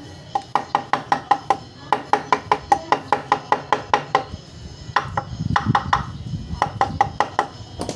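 Rapid metallic tapping on a motorcycle engine's clutch cover, about five taps a second, each with a short ring. It comes as one long run and then two shorter bursts, as the stuck cover is knocked to free it from the engine case.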